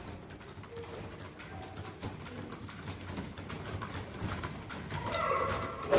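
Computer keyboards clattering as several people type fast at once, a dense run of quick key clicks. A louder sound swells in about five seconds in.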